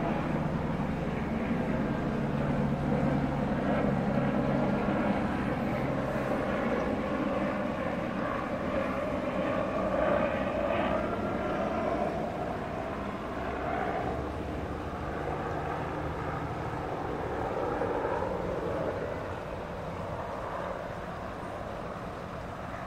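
A distant engine running, a steady low drone that swells and sags and fades gradually toward the end.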